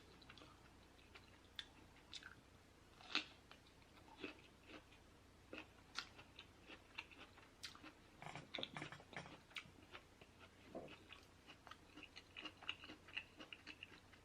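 Quiet, close-miked chewing: a steady run of small wet mouth clicks and smacks, busiest about eight to nine seconds in.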